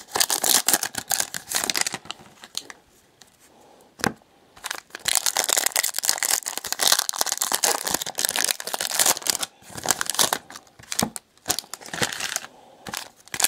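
Trading-card pack wrappers from 2018 Panini Prizm NASCAR packs being torn open and crumpled by hand, in irregular bursts of crackling and crinkling. The crackling pauses for a couple of seconds near the start, broken by one sharp click.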